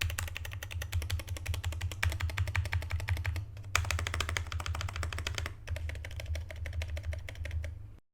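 Fast typing on a Pojun PJ02 mechanical keyboard with Outemu Brown switches, PBT keycaps, foam inside and taped, Vaseline-lubed stabilizers. Rapid keystrokes clatter with two brief pauses and stop suddenly near the end, over a steady low hum.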